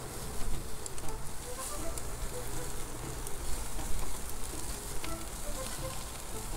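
Jerk chicken sizzling over a charcoal grill, with fat crackling and flaring in the coals and a few faint clicks of metal tongs turning the pieces.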